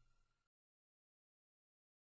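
Near silence: the last faint tail of the background song fades away within the first half second, then complete digital silence.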